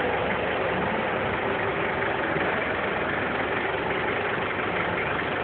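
Toyota truck's engine idling steadily.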